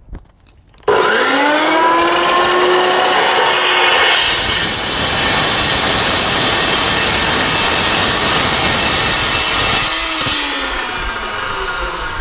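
Ironton 14-inch dry-cut chop saw switched on about a second in, its pitch rising as the blade spins up. From about four seconds in the blade cuts through steel tube with a loud, bright, hissing grind for about six seconds. Near the end the cut finishes and the saw winds down, its pitch falling.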